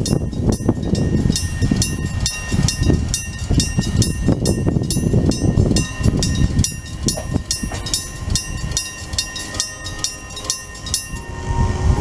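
Japanese level-crossing warning bell striking rapidly, about three strikes a second, over the loud rumble of a passing train; the bell stops near the end.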